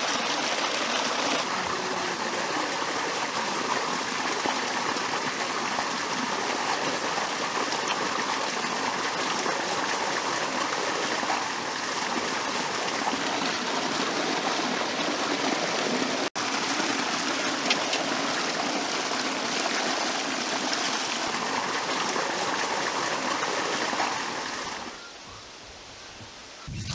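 Rushing stream water pouring and splashing over rocks, a steady loud rush. It cuts out for an instant about 16 seconds in and drops to a much quieter background near the end.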